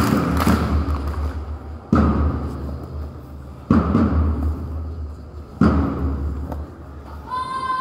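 A big drum struck three times, about two seconds apart, each beat booming and then fading, keeping time for a group drill. Near the end a held high tone starts.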